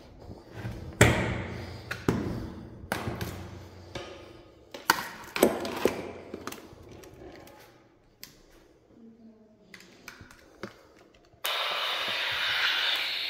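Irregular knocks and thuds echoing through the hard, empty cell block, the loudest about a second in, thinning to scattered faint clicks. Near the end a steady hiss starts abruptly.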